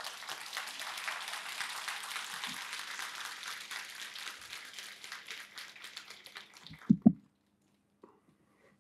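A large audience applauding, a dense patter of hand claps that fades out about seven seconds in. Two short low thumps come right as it ends.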